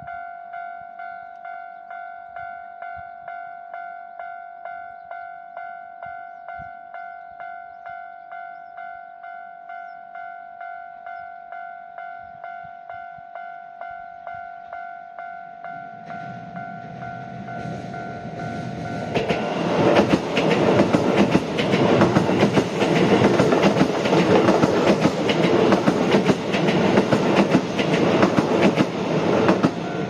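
Japanese level crossing's warning bell ringing in an even, repeating two-tone "kan-kan" rhythm. From about 16 s a Keisei electric train approaches, and from about 20 s in it passes the crossing loudly, its wheels clattering over the rails and drowning out the bell, which is heard again right at the end.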